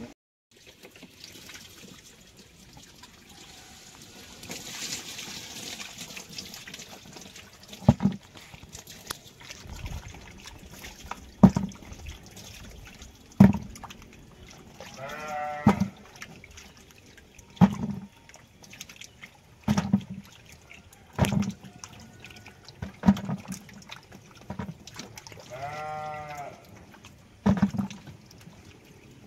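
Freshly picked cucumbers being rubbed clean by hand in a bucket of water and dropped one at a time into a second bucket of water, a wet splash-knock every second or two. A small livestock animal bleats twice in the background.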